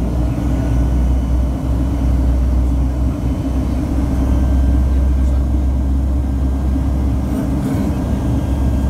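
Airliner cabin noise in flight: a steady, loud rumble of engines and airflow heard from inside the cabin.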